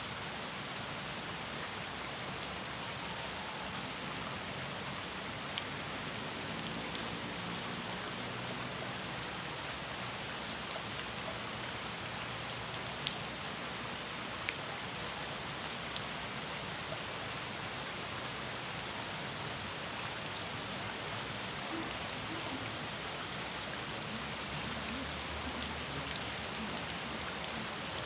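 Steady rain falling on a pond: an even hiss of rain on water, with occasional single drops landing louder as sharp ticks.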